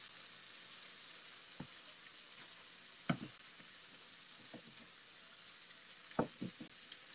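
Mahi-mahi fillets searing in butter in a skillet: a steady sizzle, with a few brief soft taps, the loudest about three seconds in.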